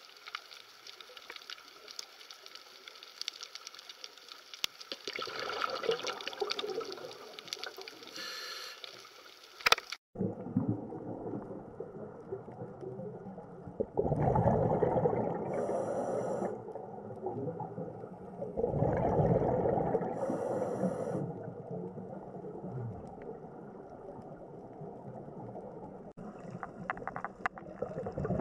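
Underwater sound picked up by a diver's camera. At first there is faint steady crackling. After a cut about ten seconds in come gurgling rushes of exhaled bubbles from a scuba regulator, each lasting about two seconds and repeating every five seconds or so.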